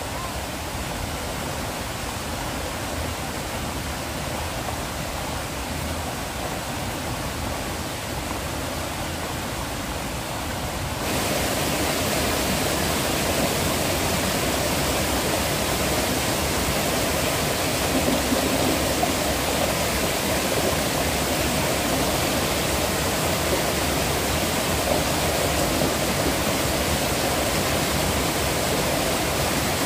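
Steady rushing noise of flowing water, which becomes louder about eleven seconds in.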